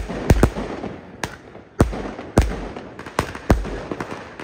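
Fireworks and firecrackers going off: about ten sharp, loud bangs at irregular spacing, with crackle between them, as aerial shells burst into sparks overhead.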